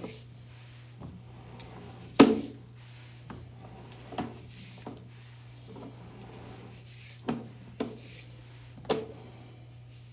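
Sewer inspection camera's push cable being drawn back through the line: irregular knocks and rubs from the cable and its reel, the loudest about two seconds in, over a steady low hum.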